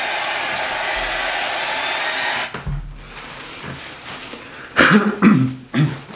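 Concert crowd cheering and applauding on the played-back live video, cutting off abruptly about two and a half seconds in as the video ends. Near the end come a few short, low vocal sounds from the listeners.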